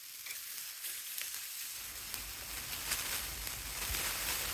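Sausages sizzling on a wire grill over a wood fire: a steady hiss with scattered crackles that grows louder about two seconds in, joined by a low rumble.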